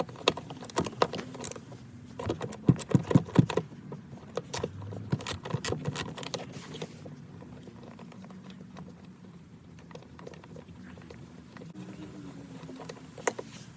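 Irregular metallic clicks and clinks of a Torx socket and hand tool working the seat belt's T50 anchor bolt loose, busiest in the first few seconds and then quieter.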